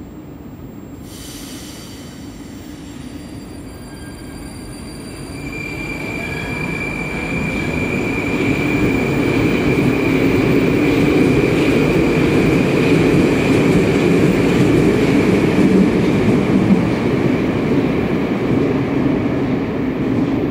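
An 81-765 'Moskva'-family metro train pulling out of a station, heard from the platform. A short hiss comes about a second in. From about five seconds a high whine sets in over the rumble of the wheels, and the sound grows loud as the train gathers speed past the platform.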